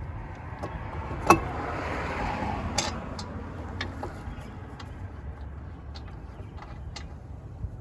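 Metal clinks and scraping from handling a brake caliper and its bolts: a sharp clink about a second in, a short scrape with another clink, then scattered light taps, over a steady low rumble.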